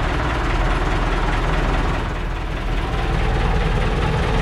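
Fishing boat's engine running steadily at low speed, with a slight dip in loudness about halfway through.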